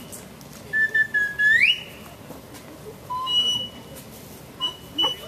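Whistled notes: a held note that slides up and holds on a higher note, then two shorter high notes, each starting with a brief lower one.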